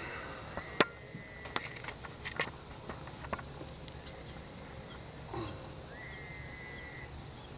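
Several sharp clicks and knocks in the first few seconds, the loudest about a second in. Twice a steady high-pitched call about a second long sounds over a low steady outdoor background, once near the start and once about six seconds in.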